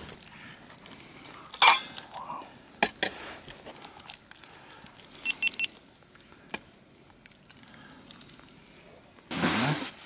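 Camp cookware clinking and knocking: a few scattered sharp knocks and metallic clinks, three quick ringing clinks in a row past the middle, then a louder burst of sound near the end.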